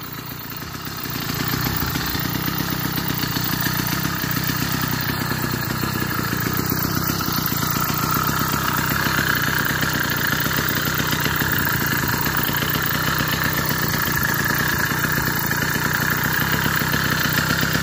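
80cc two-stroke bicycle engine kit running under way, growing louder about a second in, then holding a steady pace.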